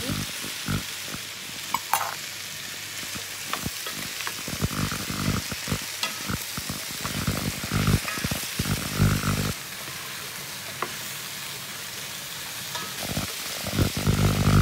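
Chopped potato, carrot, onion and meat stir-frying in a wide pan, sizzling steadily while a wooden spatula scrapes and turns the pieces. Onion pieces tumble into the pan at the start, and the stirring clatter comes in spells, busiest in the middle and again near the end.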